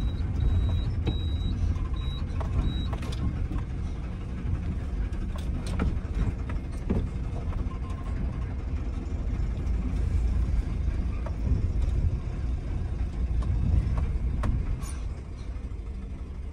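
Mahindra Furio truck's diesel engine and road noise heard from inside the cab while driving, a steady low rumble. A high electronic beep repeats several times in the first few seconds.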